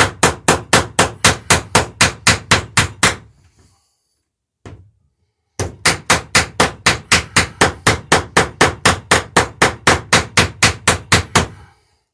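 Ball-peen hammer peening over copper rivets in a wooden dory's planking: rapid, even light taps, about five a second. The tapping stops about three seconds in and starts again some two seconds later, running on until just before the end.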